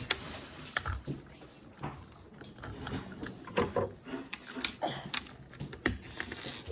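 A small plastic toy package being worked open by hand: scattered light clicks, taps and rustles.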